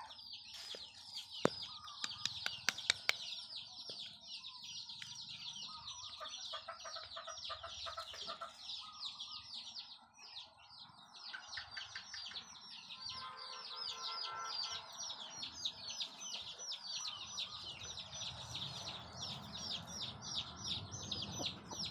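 Birds chirping rapidly and continuously, a dense run of short high chirps several a second, with a few sharp clicks a couple of seconds in.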